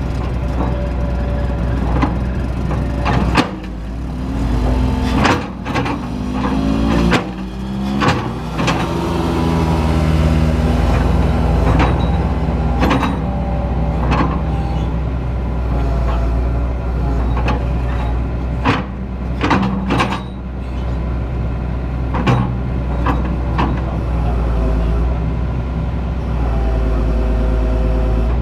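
Excavator's diesel engine running under hydraulic load, its pitch rising and falling as the controls are worked. Sharp knocks and clanks sound every few seconds throughout.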